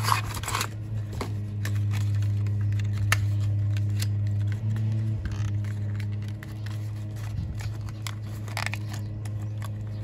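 Hands opening a small diecast toy car's window box: scattered clicks, scrapes and rustles of cardboard and plastic packaging, a box that is hard to open. A steady low hum runs underneath.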